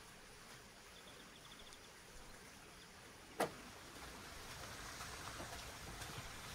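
Quiet outdoor background hiss with a faint, rapid high trill of ticks about a second in, then a single sharp knock a little past halfway, after which a soft hiss sits a little louder.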